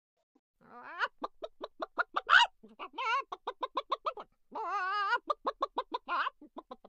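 Chicken clucking in quick runs of about four or five clucks a second, starting after a short pause, with one longer drawn-out squawk about two-thirds through.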